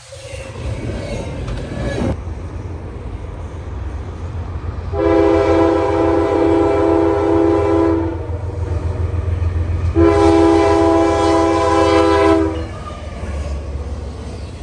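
Diesel locomotive sounding its multi-chime air horn in two long blasts, over the steady low rumble of the train passing.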